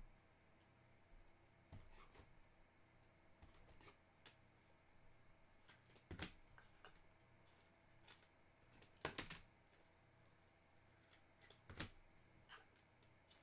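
Faint rustling and light clicks of trading cards and their packaging being handled, over low room tone, with sharper rustles about six, nine and twelve seconds in.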